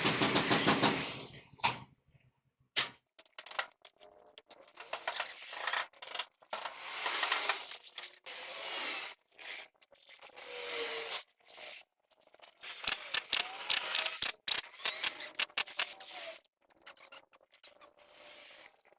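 Hand tools and metal parts being worked on a truck differential: irregular scraping and rubbing with many sharp metal clicks, coming thickest in a quick run about thirteen to sixteen seconds in.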